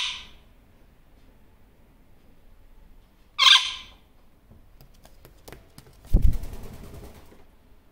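A superb parrot (Barraband parakeet) gives one short loud call about three and a half seconds in, after the tail of another call right at the start. A few light clicks follow, then a thump and a quick run of wingbeats as the parrot takes off, about six seconds in.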